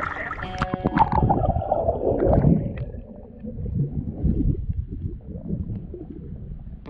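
Sea water sloshing and gurgling around an action camera's waterproof housing as it goes under the surface, then a muffled, low underwater rumble with irregular swells.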